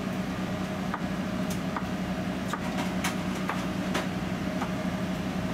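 Steady machinery hum of the food truck's kitchen equipment, with a scattering of light clinks and knocks from kitchen work at the counters.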